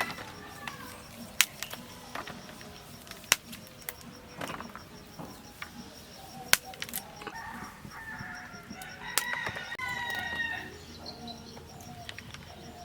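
A rooster crowing: short broken calls build to one long crow lasting over a second, about two-thirds of the way through. Sharp single knocks sound now and then.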